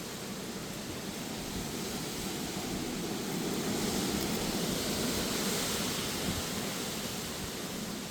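Strong gusty wind with rain: a steady rushing noise that builds to a gust in the middle and eases off near the end.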